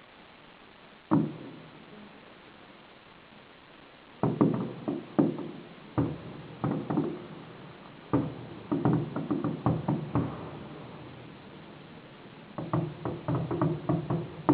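Fireworks exploding: a single bang about a second in, then several rapid volleys of bangs in clusters, each bang trailing off briefly.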